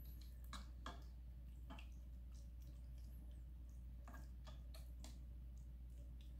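Faint stirring of a thick creamy sauce with a plastic spatula in a pot: soft wet squishes and a few irregular light clicks as the spatula knocks the pot, over a low steady hum.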